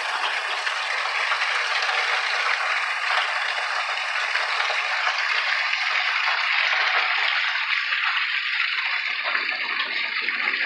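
Heavy rain falling steadily on grass, pavement and the porch, an even hiss. A lower sound joins about nine seconds in.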